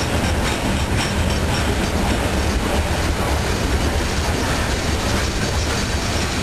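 Norfolk Southern freight train's gondola cars rolling past in a steady rumble, with the clickety-clack of wheels over rail joints.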